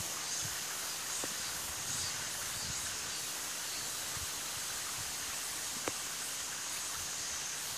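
Steady outdoor background hiss with an even, high band, broken by a few faint ticks.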